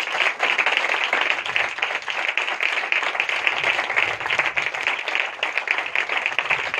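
A congregation clapping in praise: many hands in steady applause.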